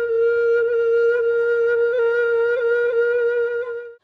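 Background music: a flute-like wind instrument holds one long steady note with a few small pitch flicks, then cuts off abruptly near the end.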